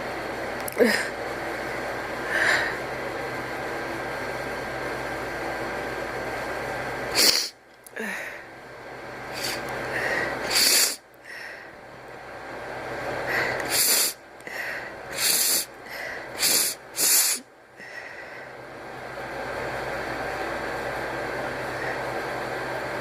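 A person's sneeze buildup with no sneeze: a series of short, sharp, breathy catches and sniffs. A few are spread out early, then a quick run of four or five comes about 13 to 17 seconds in, over a steady background hiss.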